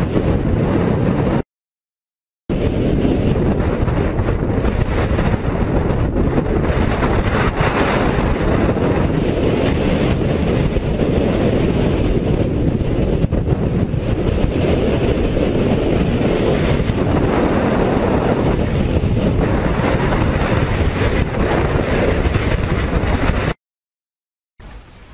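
Strong mountain wind blasting over a GoPro's microphone, a loud steady rush of noise. It drops out to silence twice, for about a second each, about a second and a half in and near the end.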